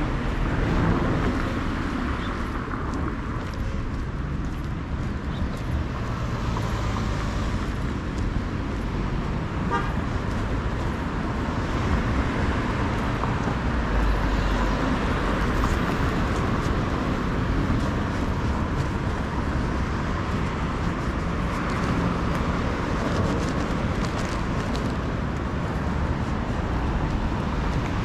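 Road traffic on a busy avenue: cars driving past in waves, their tyre and engine noise swelling and fading over a steady street background, with low wind rumble on the microphone.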